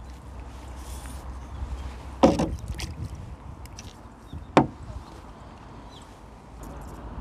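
Two sharp knocks about two seconds apart, from fishing gear being handled on a floating fishing platform, over a faint steady low background.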